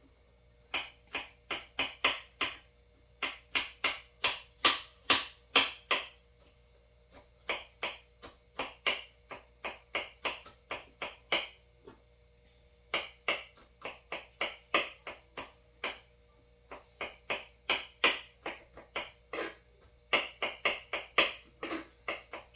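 Knife chopping zucchini insides in quick strokes, about three to four a second, in runs broken by short pauses.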